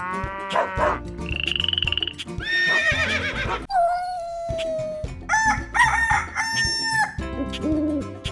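Intro music with a steady beat, overlaid with about six cartoon-style animal call sound effects in quick succession, each one different: rising, trilling and falling calls.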